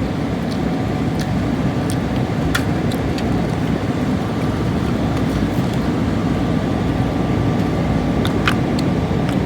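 Steady roar of an airliner cabin in flight, from the engines and rushing air, with a few light clicks over it.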